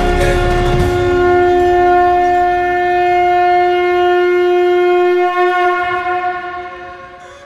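Conch shell (shankh) blown in one long, steady note that fades away over the last two seconds, with a dense low rumble under its first second.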